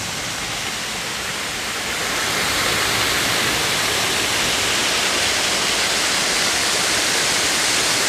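Waterfall rushing steadily, water pouring over a rock ledge in thin curtains and splashing onto the rocks below, running high with more water than usual. The rushing grows louder about two seconds in and then holds steady.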